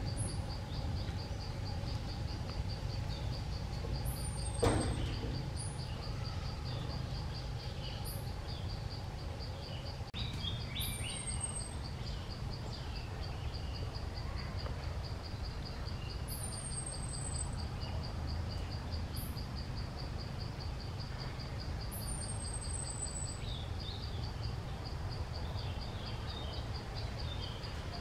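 Forest ambience: an insect trilling steadily in rapid, even pulses, with short falling bird chirps every few seconds over a low steady rumble. A brief sharp sound stands out about five seconds in.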